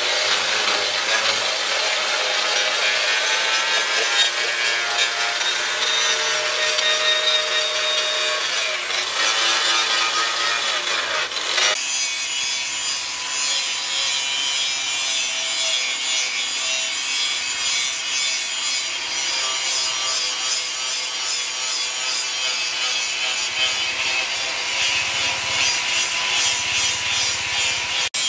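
Angle grinder grinding the edge of a steel disc-plough blade, its high whine climbing, dipping about nine seconds in and climbing again. About twelve seconds in the sound changes abruptly to the steady running noise of a charcoal forge as the blade heats in the coals.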